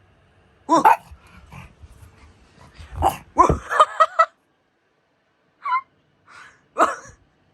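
Pug barking in short, sharp barks: one about a second in, a quick run of barks and yips around three to four seconds in, then two more single barks near the end.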